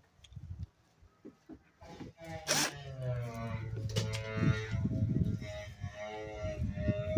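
Cordless drill starting about two seconds in and running with a wavering motor whine, boring a mounting hole through a plastic headlight grille into the car's body panel, with rough grinding as the bit cuts.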